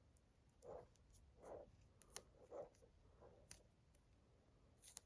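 Faint handling sounds of electrical tape being wrapped around a phone charging cable: four soft swishes and a few light clicks.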